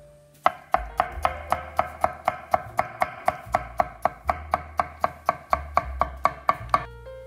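A chef's knife rapidly chopping pickled gherkins into small dice on a wooden cutting board: even knocks of the blade on the board, about four a second. They start about half a second in and stop near the end.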